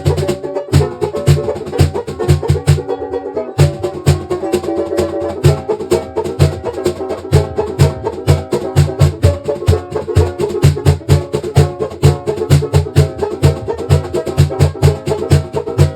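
Background music: a plucked-string tune over a steady beat.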